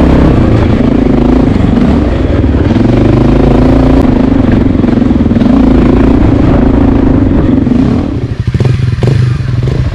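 Dual-sport motorcycle engine pulling up a rutted dirt trail, its revs rising and falling with the throttle, with some clatter from the bike over the rough ground. About eight seconds in the revs drop to a slow, even putter as the bike slows down.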